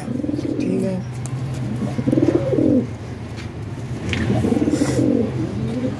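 Domestic pigeons cooing: about three low coo phrases, roughly two seconds apart, over a steady low hum.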